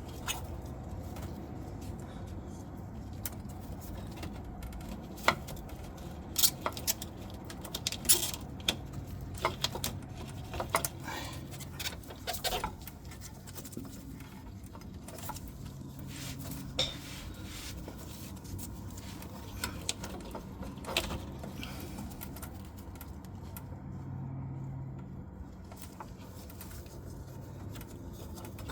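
Irregular small metallic clicks and clatter of hand tools working the hose clamps on a fuel filter line. The clicks come thickest in the first half, over a low steady hum.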